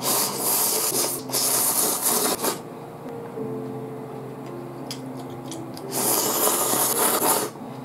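Chilled ramen noodles being slurped: two long, noisy slurps back to back, then a third about six seconds in, over soft background music.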